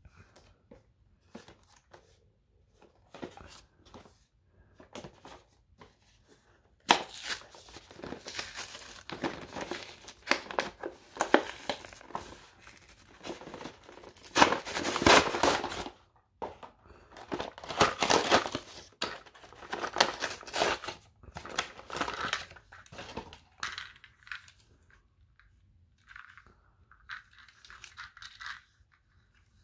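Cardboard toy packaging being torn and pulled apart by hand, in noisy bouts of tearing and crinkling that are loudest in the middle. Light clicks and handling come before and after.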